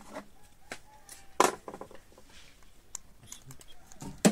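Small clicks and taps from wires being handled and pulled against a plastic switchboard, with two sharper clicks, one about a second and a half in and one near the end.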